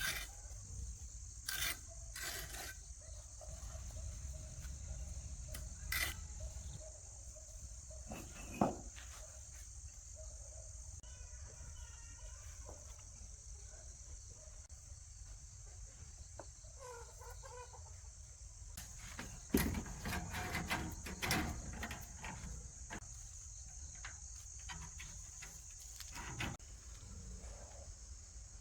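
Steady high-pitched chirring of insects such as crickets, with scattered knocks and scrapes of outdoor work, busiest about twenty seconds in.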